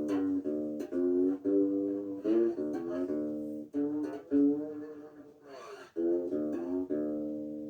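A tuned-down cigar box guitar played acoustically, unplugged: plucked notes and chords with some sliding in pitch, and a final chord left ringing near the end.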